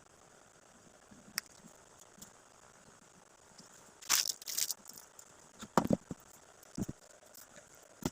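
Handling items from gift boxes: a brief crinkling rustle of wrapping about four seconds in, then a few short knocks as things are moved and set down, with a light click early on.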